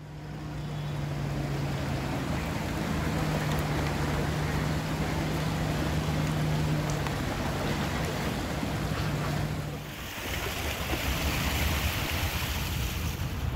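Steady low hum of a truck's diesel engine running as it wades through floodwater, over a constant wash of moving water. About ten seconds in the hum stops and a louder hiss of water and wind on the microphone takes over.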